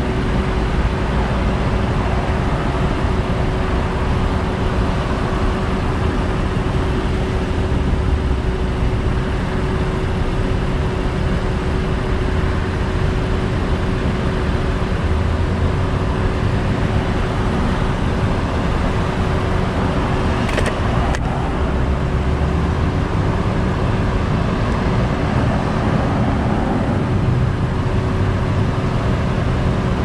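Road traffic crossing an intersection: a steady rumble of passing cars with a constant faint hum underneath, and one brief high tick about two-thirds of the way through.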